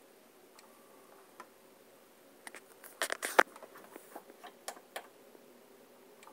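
Handling noises: a scatter of small clicks and taps, loudest in a quick cluster about three seconds in, over a quiet room.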